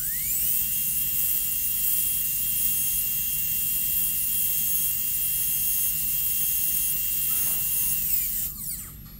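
High-speed dental handpiece with a 330 bur cutting the buccal groove of a maxillary first molar for an amalgam cavity prep. It gives a steady high whine that rises in pitch over the first half second, holds, and winds down near the end.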